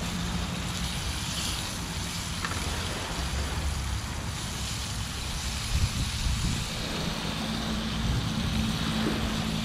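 Wind rumbling on the microphone and small waves washing on the shore, over the hiss of a portable butane stove with fish frying in butter in the pan.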